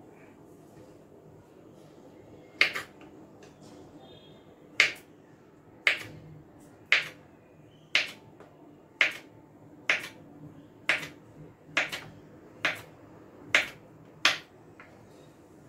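Kitchen knife slicing a peeled banana into rounds on a wooden chopping board: the blade knocks sharply on the board about once a second, around a dozen times, starting a couple of seconds in.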